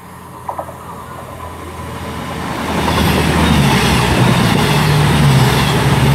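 Cross Country Class 221 Super Voyager diesel multiple unit passing through without stopping. Its diesel engine drone and wheel-on-rail rush build up and become loud and steady from about three seconds in.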